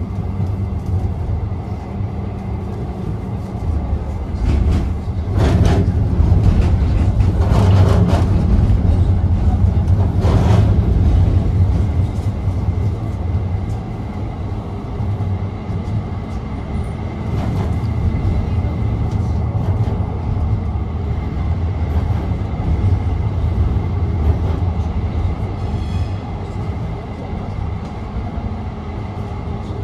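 Tram running along its track, heard from inside the car: a steady low rumble that grows louder for several seconds after the start, with a few sharp clicks.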